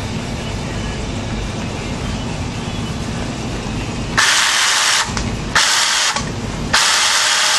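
Ryobi chainsaw with a 10-inch bar running with a steady low hum, then about four seconds in the chain is run up in three short bursts, each a loud whirring hiss under a second long, the third still going at the end.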